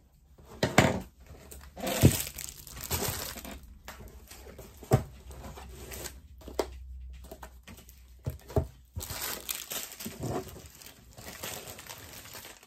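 Packaging handled on a desk: crinkling and rustling, with a few sharp knocks as items are moved.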